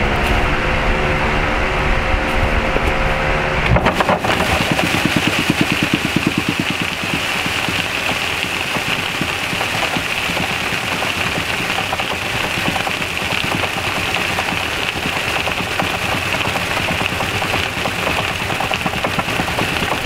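Electric wheat threshing machine running, with a fan on its highest speed blowing beside it. About four seconds in, the steady motor hum gives way to a dense, fast rattle with a hiss.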